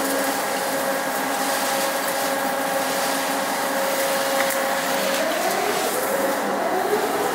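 Downspout roll forming machine running, a steady machine whine made of several held tones. About five seconds in, a whine starts rising in pitch as the drive speeds up.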